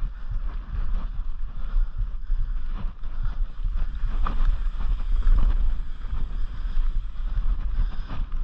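Mountain bike riding down a rocky dirt trail: wind buffets the microphone in a heavy, fluttering rumble, over the crunch of tyres on dirt and frequent knocks and rattles from the bike going over rocks and bumps.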